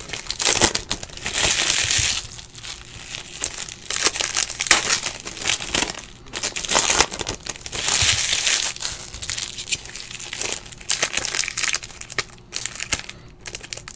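Foil wrappers of Bowman Chrome trading card packs crinkling and tearing as they are ripped open by hand, in uneven bursts, loudest about a second in and again around eight seconds in.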